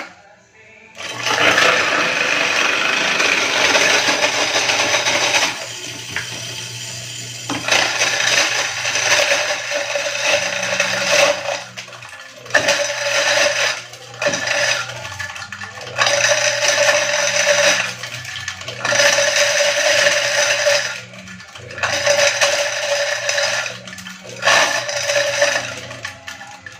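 Electric ice crusher running in repeated spurts of a few seconds each, its motor humming under the rattle and grinding of ice being crushed.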